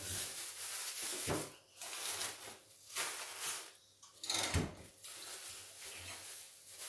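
Refrigerator being emptied by hand: plastic drawers and containers sliding, rustling and knocking, with sharper clunks about a second in and again around four and a half seconds.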